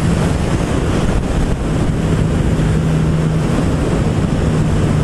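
Wind rushing over the rider's microphone, with the Suzuki GSX-S1000's inline-four engine running at steady revs under it. The engine's steady note grows stronger about two seconds in.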